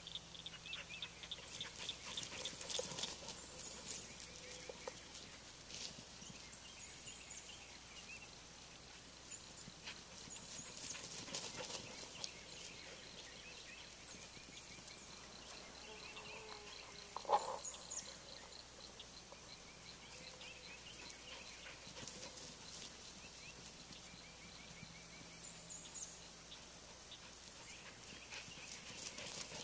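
Open-field ambience: scattered bird chirps and, at the start, a steady insect tone, with several spells of light rustling clicks and one short, louder sound a little past halfway.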